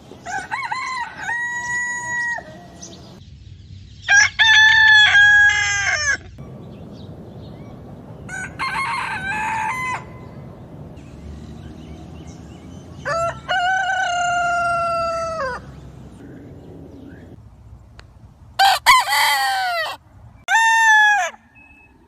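Roosters crowing: about six separate cock-a-doodle-doo crows, each one to two seconds long, with pauses between them.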